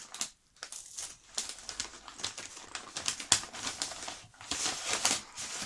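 Gift wrapping paper rustling and crinkling in irregular crackles as a soft wrapped present is pulled open by hand.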